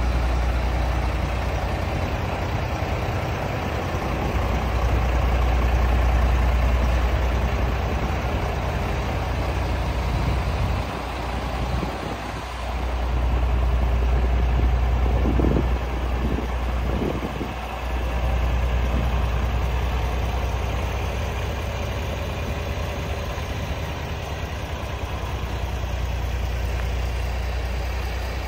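Diesel engine of a Scania G400 4x4 tractor unit idling steadily, a deep even rumble that briefly drops in level twice near the middle.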